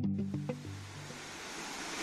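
Waterfall pouring into its plunge pool: a steady rushing hiss of falling water that comes in just after the start as the last guitar notes die away.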